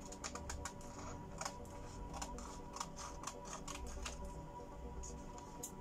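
Scissors snipping into pattern paper: a rapid, uneven series of short, crisp snips as slits are cut into a paper pattern piece.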